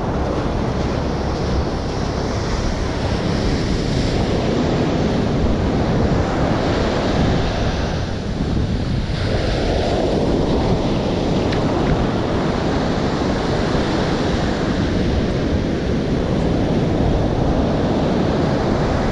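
Ocean surf breaking and washing up the sand, a continuous rushing wash that eases briefly about halfway through, with wind buffeting the microphone.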